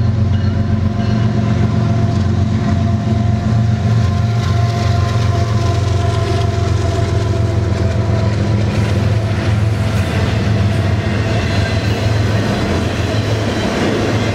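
Union Pacific diesel locomotives passing with a steady engine drone, followed by double-stack container well cars rolling by with wheels clattering over the rails.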